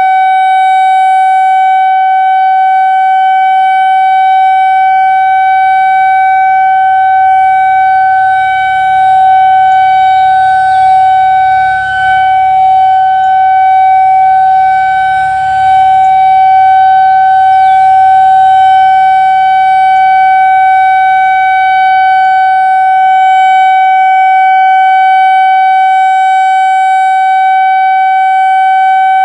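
Whelen 2000R/400R electronic outdoor warning siren sounding its steady alert tone for a scheduled test: one loud, unbroken note that holds a single pitch with no rise or fall.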